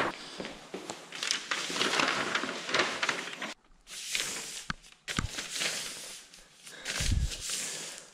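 A Tyvek Housewrap sheet rustling and crinkling as hands fold it and smooth it flat, with short breaks about three and a half and five seconds in and a soft low thump near the end.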